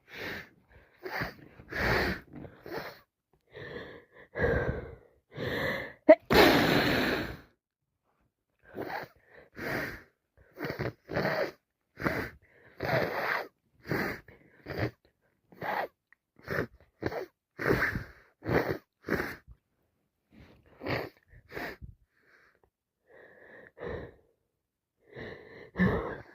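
A person with a head cold sneezing repeatedly, with quick wheezy, gasping breaths in between; the loudest and longest sneeze comes about six seconds in.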